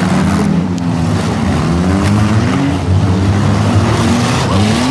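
Several compact four- and six-cylinder demolition derby cars' engines revving up and down at the same time, their pitches rising and falling against one another.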